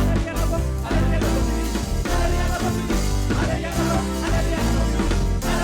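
Live church praise-and-worship band playing an upbeat song with a steady beat, bass and guitar, with singing.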